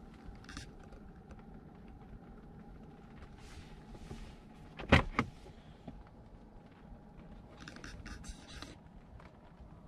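Two sharp clunks from a car, about a third of a second apart, come about halfway through over a low, steady rumble, with a little faint rattling and rustling.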